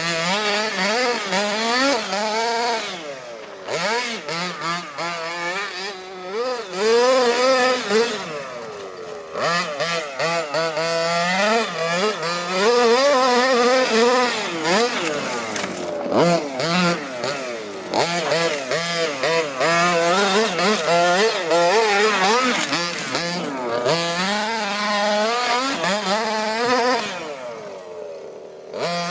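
HPI Baja 5T 1:5-scale RC car's 26cc two-stroke gasoline engine, fitted with a Jet-Pro tuned pipe, revving hard and constantly as the car is driven. Its pitch rises and falls with the throttle, dropping briefly to a low idle several times.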